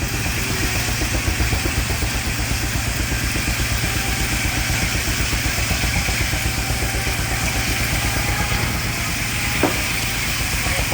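Baker 23-90 uniflow steam traction engine running the sawmill, its exhaust beating fast and evenly, with a hiss over it. A brief sharp chirp sounds near the end.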